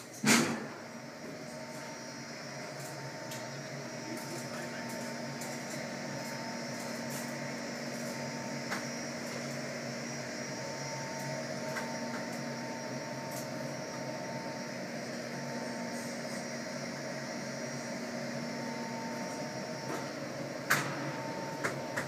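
Ventilation plant running steadily: a continuous rush of air with a hum and a few steady whining tones from the air-handling machinery and insulated ducts. A loud knock sounds just at the start, and a sharp click near the end.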